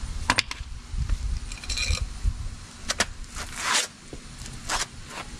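A few sharp clicks and knocks near the start, then several brief scraping swishes: a steel hammer being set down and a mechanic's shoes and clothes moving on a concrete driveway.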